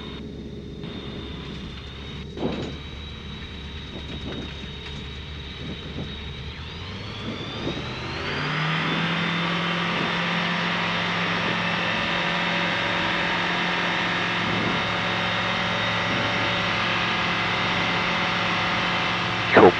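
Skyranger Swift 2 microlight's 100-horsepower engine and propeller running at low power during a touch-and-go roll on grass, with one thump about two and a half seconds in. Around seven seconds in, the engine note rises as the throttle opens to takeoff power. It then holds steady and much louder for the takeoff and climb.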